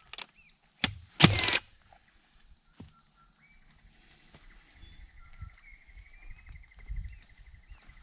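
A few clicks and a short, loud metallic rattle about a second in, from the staple magazine of a cordless fencing stapler being handled as staples are loaded. Then birds chirp over a quiet rural background.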